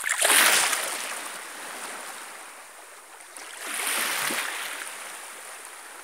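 Legs wading through shallow, calm sea water: two sloshing splashes, one at the start and one about four seconds in, over a light steady wash of water.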